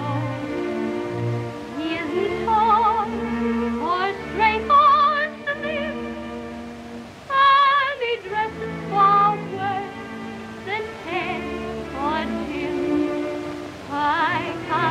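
A woman singing a solo song in held, strongly vibrato notes, over a soft sustained instrumental accompaniment, from a 1929 early sound-film soundtrack.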